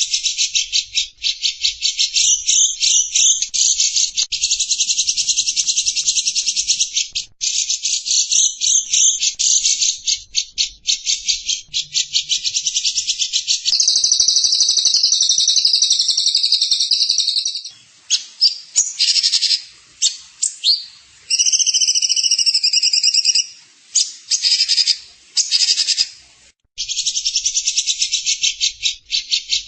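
A songbird's rapid, high-pitched trilling song from a birdsong training recording, running in long fast trills and switching midway to a steady high buzz and short broken chattering phrases with brief gaps.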